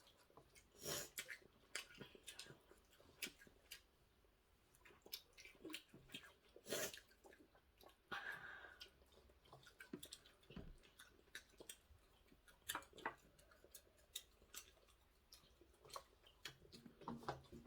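Faint eating sounds: a child chewing, with scattered small clicks and a few louder taps.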